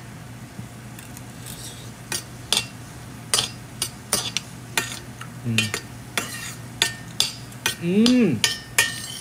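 A utensil scraping and clacking against a frying pan as rice, vegetables and chicken breast are stirred and mixed over the heat, with a faint sizzle and a steady low hum. Near the end there is a short, pitched vocal 'mm' that rises and falls.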